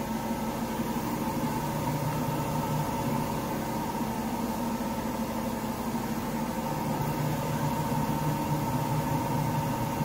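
Speed Queen front-loading washer spinning its drum, a steady hum with several held tones. The load has found its balance and the machine keeps running in spin without being held.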